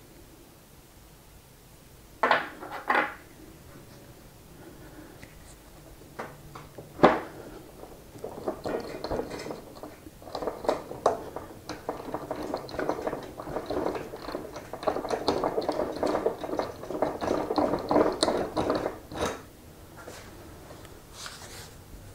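Metal parts clinking on a workbench as axle nuts and washers come off an electric unicycle hub motor: a few sharp clinks, then about ten seconds of continuous rattling and scraping.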